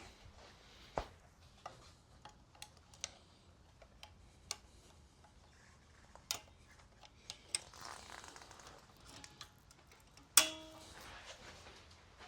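Hand tools working on a motorcycle engine: scattered small metallic clicks and taps, then one loud metal clank about ten seconds in that rings on briefly, as a tool knocks or is set down on metal.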